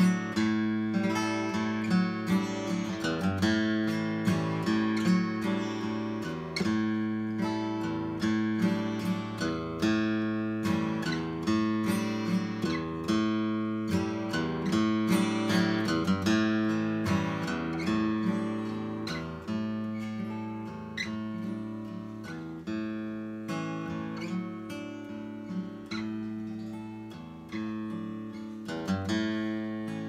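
Furch D32 SM steel-string dreadnought acoustic guitar played solo: an improvisation of strummed and picked chords, with frequent quick attacks over notes left ringing as the chords change.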